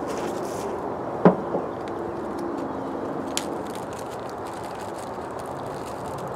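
A single sharp knock about a second in, quickly followed by a lighter one and later a faint click, over steady outdoor background noise with a low hum.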